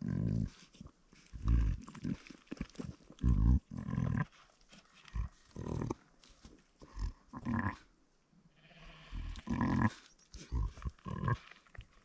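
A mother ewe with her newborn lamb: a string of short, low sheep calls, about a dozen in all, with a brief lull a little after halfway.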